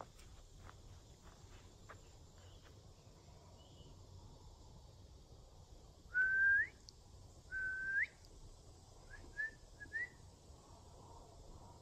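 A few footsteps on forest leaf litter, then two clear whistled notes, each held level and then sweeping sharply up at the end, followed by a few short rising chirps.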